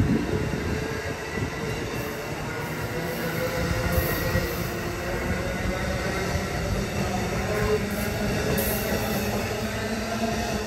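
Amtrak Amfleet passenger coaches rolling past: a steady rumble of wheels on rail with thin squealing tones from the wheels over it.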